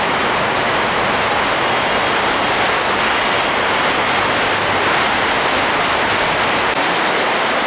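Rain falling steadily: a loud, even hiss with no breaks.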